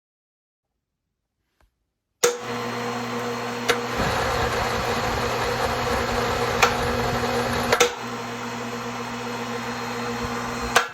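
Electric cable hoist motor switched on about two seconds in, running steadily with a hum as it turns a tubing roller through a chain and sprockets, with a few clicks, then cutting off abruptly near the end.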